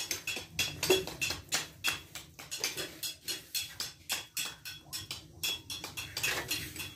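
Light metallic tapping and clinking, several quick strikes a second with a faint ring to each, from hand tools worked on metal in traditional ornament-making.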